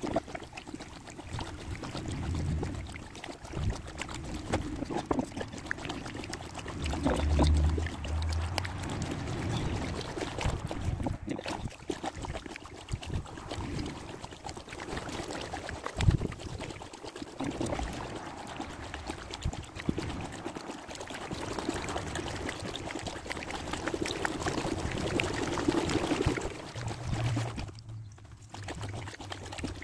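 Kayak paddle strokes in canal water, with water pouring and dripping off the blades in an uneven rhythm, and now and then a low thud.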